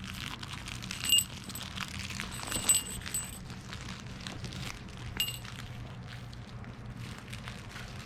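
Light clinking: a few sharp, ringing chinks, about a second in, twice near three seconds and once after five seconds, over a faint steady low hum.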